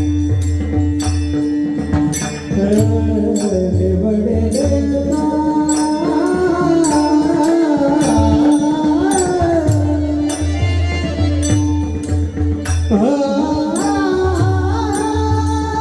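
Marathi devotional singing: a male voice sings a melodic line over a steady drone and regular percussion strokes. After a short break he climbs into a long, high held note near the end.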